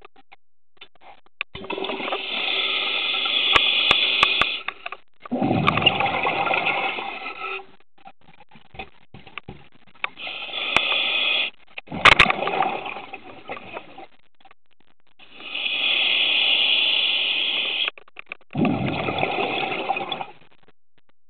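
Scuba diver breathing through a regulator, three slow breaths: each a hissing inhale of two to three seconds, then an exhale as a rush of bubbles.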